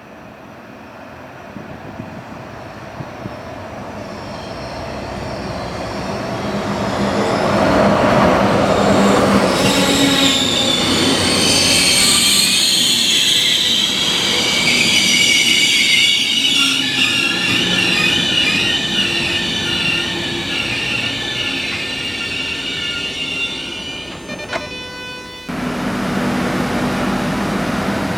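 A train pulling into a station, growing louder as it approaches, then its wheels and brakes squealing in high shrill tones as it slows. The squeal stops a few seconds before the end.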